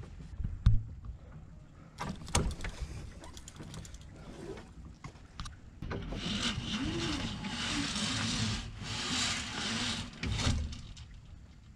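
Mainsail halyard on a Com-Pac 19 sailboat hauled hand over hand, the rope rasping steadily for about four seconds as the sail goes up the mast. It is preceded by a few sharp knocks of gear and line handling near the start.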